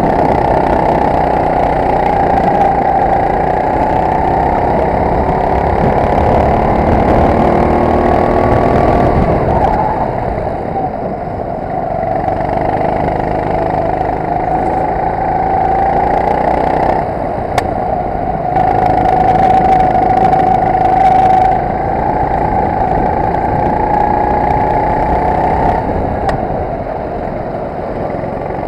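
Racing kart engine at full throttle heard from on board, with wind noise. The note rises along the straights and drops off sharply each time the throttle is lifted for a corner, about three times.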